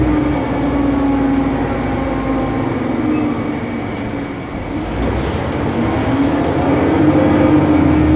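Interior noise of a Mercedes-Benz Conecto NGT city bus under way: its rear-mounted Mercedes M 936 G turbocharged natural-gas inline-six engine and cooling fan running loudly, the engine note falling about halfway through and rising again near the end.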